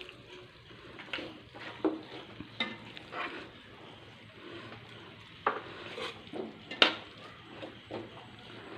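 Metal spoon scraping and clinking against a pot while chicken masala is scooped out, in a series of scattered knocks. The loudest comes about seven seconds in, over a faint sizzle from the pan.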